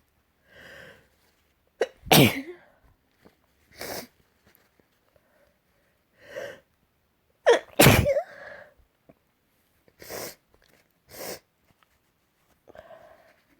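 Two loud sneezes about six seconds apart, each preceded by a catching breath. Short breathy sniffs come between and after them.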